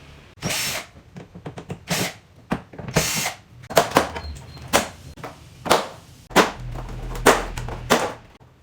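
A small power tool run in short spurts, about a dozen in a row, with clicks between them.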